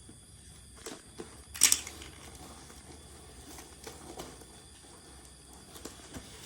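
Scattered handling noises as sengon laut seedlings are taken out and counted: light knocks and rustles, with one sharp double knock about a second and a half in as the loudest.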